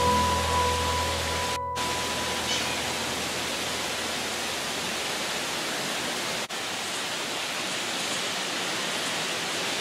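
Heavy rain pouring down, a dense steady hiss, with a low hum and a faint held tone under it for the first second and a half. The sound cuts out briefly about one and a half seconds in and again about six and a half seconds in.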